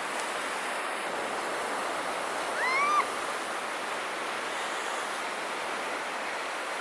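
Steady wash of breaking ocean surf. About three seconds in there is one short, high call that rises and falls.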